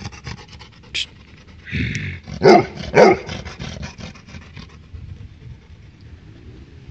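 Dog barking: two loud barks about two and a half and three seconds in, with a few quieter sounds before them and only faint sound afterwards.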